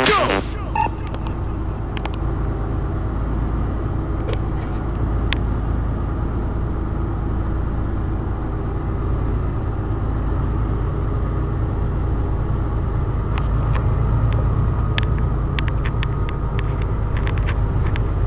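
Steady low engine rumble, with a few faint clicks in the second half.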